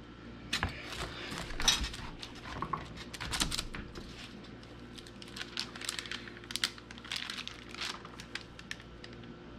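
Handling noise: parchment paper crinkling and metal cookie cutters clicking as they are moved over the dough and pressed into it, in short irregular bursts.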